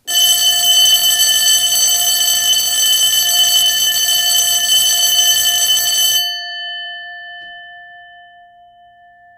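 An alarm bell rings loudly and continuously for about six seconds, then stops abruptly. Its bell tones ring on afterwards, fading away.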